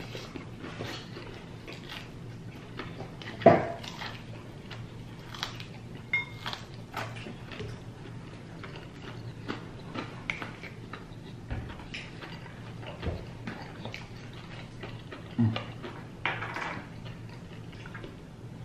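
Eating sounds: chewing and smacking on food, with scattered soft clicks and clinks of utensils against dishes, and a louder knock about three and a half seconds in.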